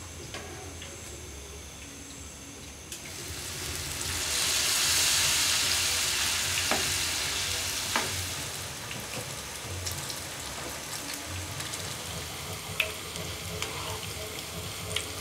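Kakiage batter of cabbage, carrot, bean sprouts and corn sizzling in hot oil in a frying pan. The sizzle swells loudly about three seconds in as fresh batter goes into the oil, then eases to a steady bubbling fry. A few light clicks of a metal spoon against the pan come through.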